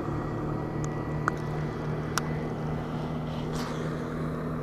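A bass boat's motor running steadily, a low even hum over a wash of noise, with two sharp clicks about a second apart early on.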